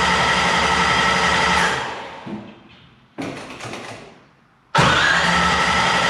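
1963 Corvette's starter motor cranking the engine over with a steady whine, then let go a little under two seconds in and winding down. After a brief sound and a short pause, the cranking starts again abruptly.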